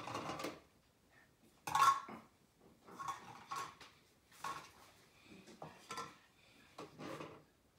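Play-kitchen pots, dishes and utensils being handled: a series of irregular clinks and knocks, the loudest about two seconds in.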